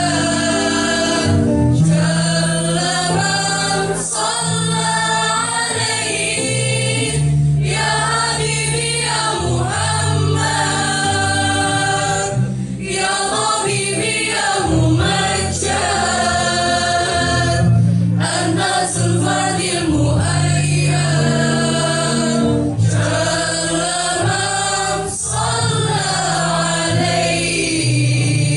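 Choir singing a song together, with held low notes changing every second or two beneath the melody.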